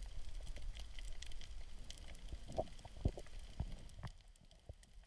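Faint underwater crackling with scattered clicks over a low rumble, as an action camera in its waterproof housing picks up the reef.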